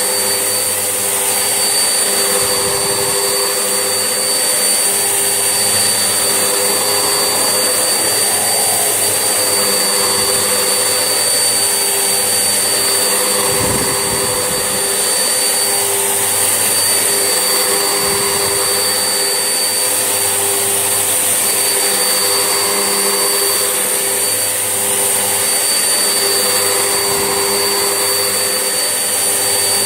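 Vax Essentials vacuum cleaner running steadily, its motor holding an even whine over a rushing of air. A few soft low knocks come through as it is pushed about.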